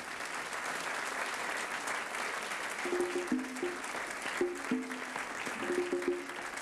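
Audience applause, with a pair of conga drums hand-played over it from about three seconds in, in short pitched strokes.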